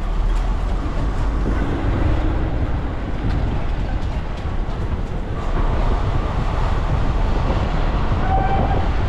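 Steady low rumble of wind buffeting the microphone over general street noise, with no single distinct event.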